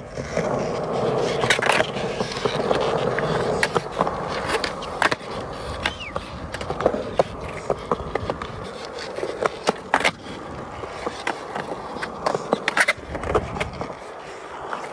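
Skateboard rolling on smooth concrete after a push, followed by a scattered series of sharp clacks and knocks as the board and its wheels hit the ground during flat-ground tricks, the loudest about ten seconds in.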